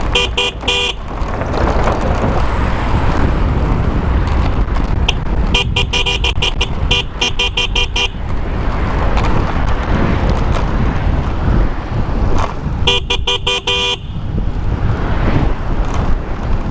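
Loud Bicycle Mini, an electronic bicycle horn that sounds like a car horn, honked in three sets of rapid repeated beeps: a short one at the start, a longer one of about two and a half seconds in the middle, and about a second's worth near the end. Steady wind and road noise runs underneath.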